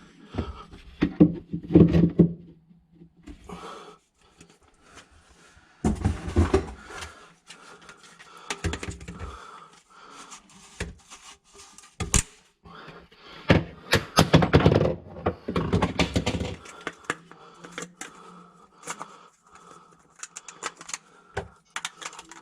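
Intermittent clicks, knocks and scraping of drain parts being handled and fitted under a kitchen sink, with one sharp knock about twelve seconds in and a longer busy stretch of clattering soon after.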